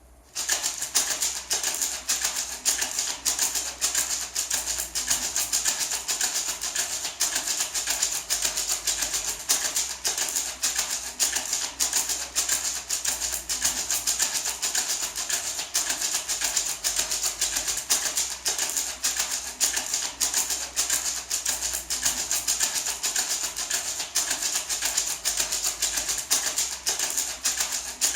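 Natural gourd maraca, shaken steadily: a continuous, even, bright rattle of many quick strokes. It starts about half a second in.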